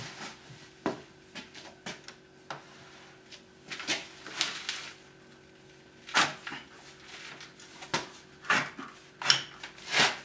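UPVC window sash and frame shifting in its mounting with irregular knocks, clicks and a longer scrape or creak, as the snapper clips holding it give way under a push at the bottom.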